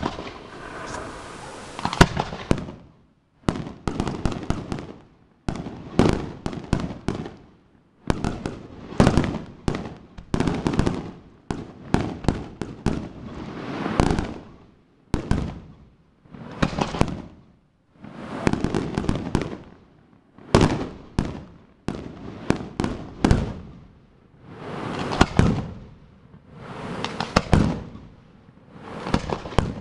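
Aerial firework shells bursting in a rapid series, a loud bang every second or two, each followed by crackling and a fading rumble.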